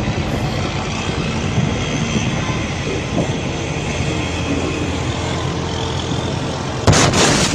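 Steady noise from a large explosion's distant fireball, then about seven seconds in a sudden loud blast: the explosion's shock wave reaching the camera.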